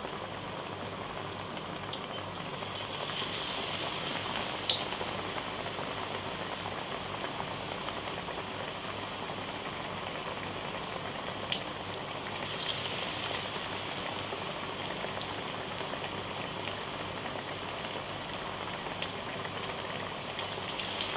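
Batter-coated bread pakoras deep-frying in hot oil in a kadai: a steady crackling sizzle, swelling louder about three seconds in and again about twelve seconds in.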